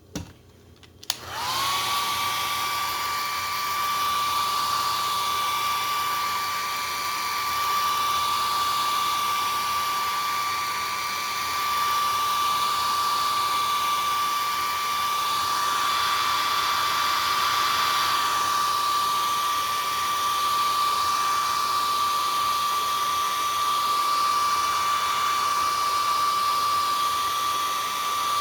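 Hair dryer switched on about a second in, its motor whine rising quickly to a steady high pitch over a rush of air, then running without a break. It is drying freshly laid acrylic paint.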